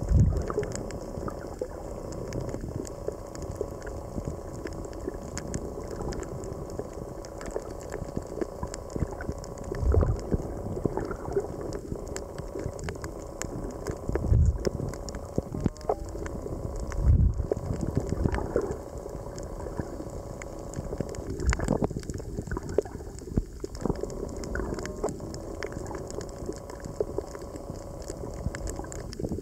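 Underwater sound from a camera held below the surface over a coral reef: a continuous muffled watery rush with scattered fine crackles. A few low thumps stand out, near the start and about 10, 14 and 17 seconds in.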